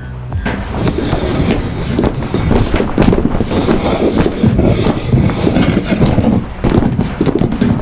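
Foley sound effect: a loud, dense clatter of rapid, irregular knocks with a rumbling rush underneath, kept up without pause.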